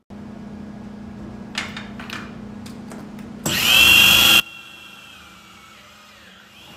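Hitachi electric drill on a bench drilling rig running with a steady hum and a few light clicks. About three and a half seconds in, the bit cuts into a small metal part for about a second, loud and screechy. Afterwards a high whine slowly sinks in pitch and fades.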